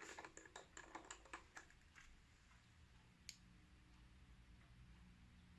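Faint, rapid small clicks and taps of a repair tool on the parts of an opened iPhone 7 as its front camera is adjusted into place. About a dozen come in the first two seconds, with one more a little past three seconds in.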